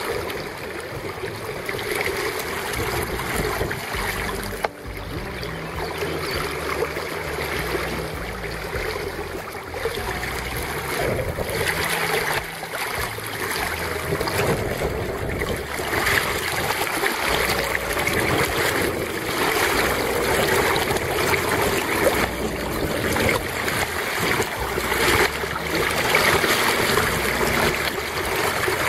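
River water rushing and sloshing around a camera held half-submerged at the surface of a shallow, rocky stream.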